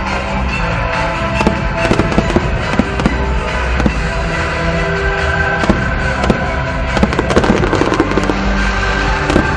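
Aerial fireworks bursting in a rapid, irregular string of bangs and crackles, with music playing underneath.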